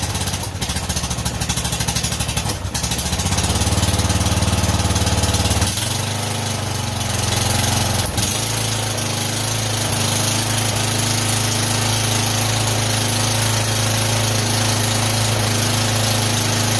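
MTD lawn tractor's engine running just after being started, pulsing rapidly at first. It picks up speed from about three seconds in, changes pitch again around six seconds and dips briefly near eight seconds, then runs steadily.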